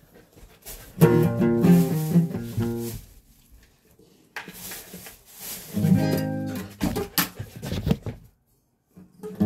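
Guitar played in two short bursts of strummed and plucked chords with a pause between them, and a sharp click in the pause.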